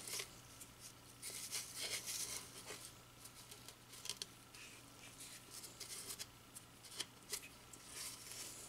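Faint, irregular scratching and rustling with small clicks from a thin pick clearing wound hair and debris off the end of a Bissell PowerGlide Pet vacuum's brush roll.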